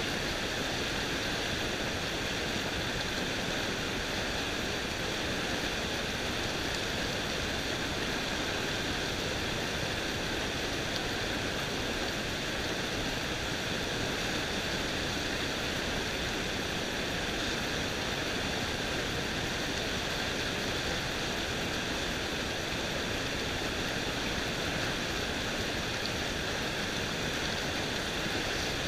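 Fast stream water rushing over rocks through white-water rapids, a steady, even rushing noise.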